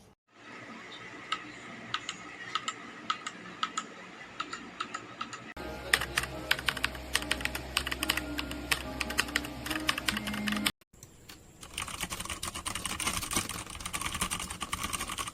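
Typing on a MetaMinor META68 65% mechanical keyboard: a rapid, irregular run of key clicks. It comes in three passages that break off abruptly about five and a half and eleven seconds in.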